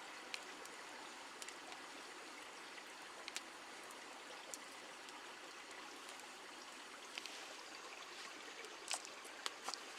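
Faint, steady hiss with a few small clicks and crackles scattered through it, a little more frequent near the end.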